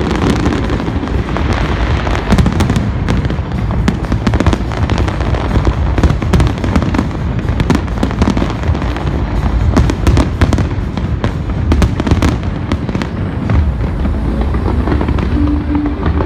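Big fireworks display in full barrage: a rapid, unbroken run of bangs and crackles over a continuous low rumble, with music playing underneath.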